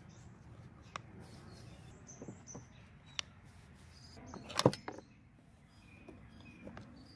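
Small metal clicks as the chainsaw's bar nuts are spun off by hand, then a louder clatter of knocks about four and a half seconds in as the plastic clutch cover is worked loose from the bar studs.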